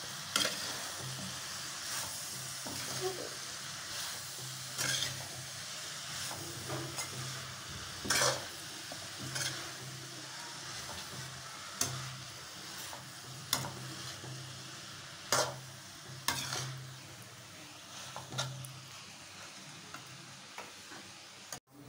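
Chopped vegetables sizzling in a metal kadhai as a steel spatula stir-fries them, scraping and clicking against the pan at irregular intervals over a steady hiss.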